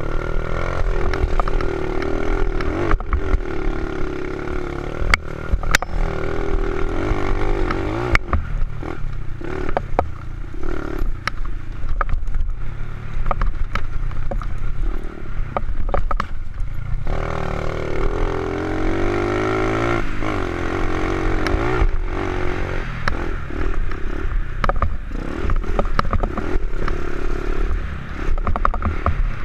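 Honda XR70 pit bike with an 88cc big-bore kit and race cam, its single-cylinder four-stroke engine revving up and falling back again and again as it is ridden hard on a dirt trail. Wind rumbles on the helmet-mounted microphone, with frequent knocks and rattles over the bumps.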